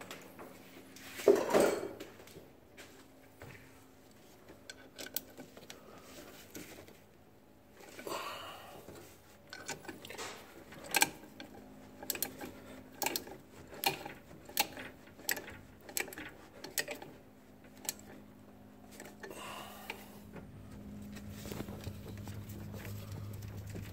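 Hands working steel brake lines and their mounting bracket in an engine bay, bending the bracket upward. A scrape about a second in, then a long run of light metallic clicks and clinks.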